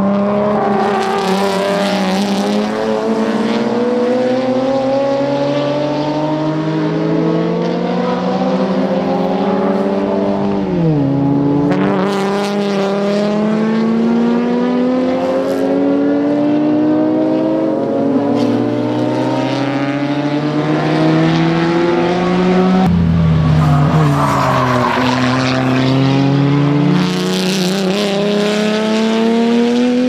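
Hyundai GT300 race cars (Genesis Coupe 3.8 naturally aspirated and Veloster N 2.0 turbo) running hard on track. The engine notes climb steadily and drop back at each upshift, several times over.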